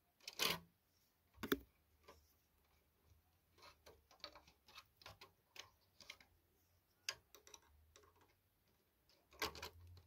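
Light plastic clicks and knocks from a Sony TC-FX211 cassette deck's cassette compartment door being fitted and pressed into place, with two louder knocks in the first two seconds and scattered small clicks after.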